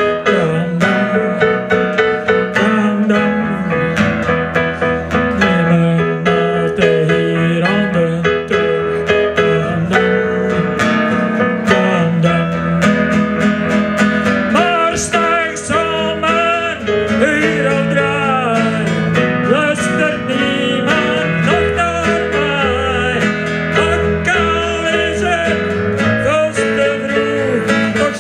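Live band music: acoustic guitar and keyboard playing an up-tempo song with a steady beat, and a man singing into a microphone.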